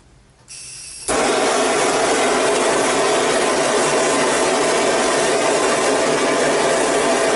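Handheld butane gas torch on a canister: gas hisses from the opened valve about half a second in, then it lights with a sharp start about a second in and the flame burns steadily and loudly.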